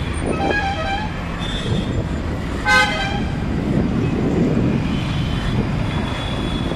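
Street traffic noise with vehicle horns honking; a short, loud horn toot a little under three seconds in stands out over the steady rumble.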